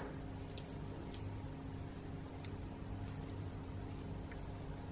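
Faint steady low hum with a few soft clicks and squishes as a spoon serves cooked cabbage into a bowl.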